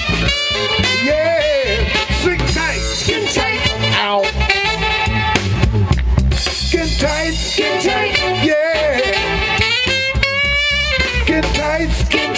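Live band music: a drum kit beat under saxophones and other melody lines that waver and slide in pitch.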